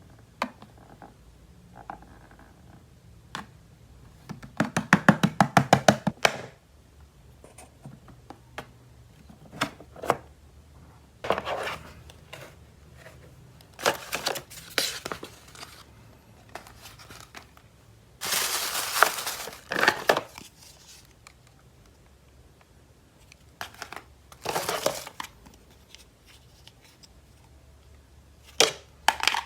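Plastic toy packaging being handled and unwrapped: bursts of crinkling and tearing plastic, with scattered clicks and knocks of plastic toy parts and a quick run of about a dozen clicks near the start.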